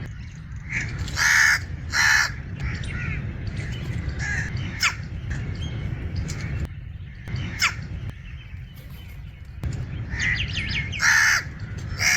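Crow giving its short, harsh coughing calls: two loud ones about a second in, fainter falling calls in between, and another loud one near the end, over a steady low rumble.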